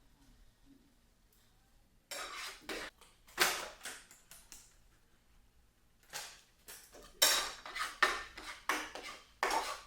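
Cooking utensil scraping and knocking against a pan while eggs are scrambled in it, in quick irregular strokes that start about two seconds in and come faster in the second half.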